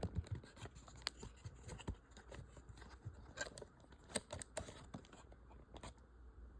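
Faint, irregular clicks and scraping of small model-kit frame parts being handled and fitted together.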